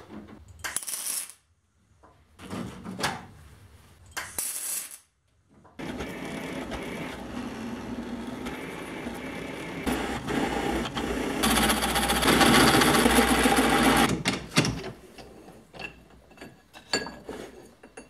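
Metal-fabrication tool noise: two short hissing bursts and a few sharp clicks, then about eight seconds of steady harsh noise that is loudest near its end, followed by scattered clicks.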